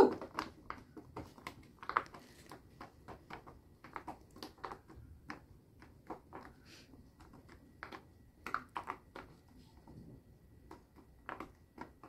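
Two people popping the bubbles of silicone Pop It fidget toys in quick succession, an irregular run of soft pops and clicks, several a second.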